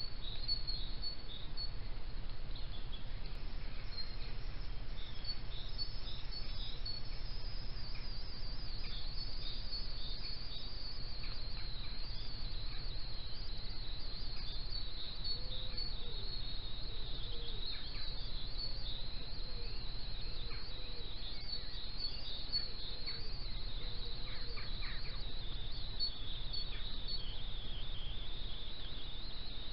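Dawn chorus of many small birds chirping continuously, high-pitched, over a steady low hum. A few lower calls come through in the middle.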